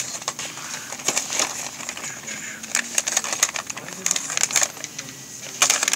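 Plastic packaging strips crinkling and crackling as they are handled, in a run of short irregular crackles, loudest near the end.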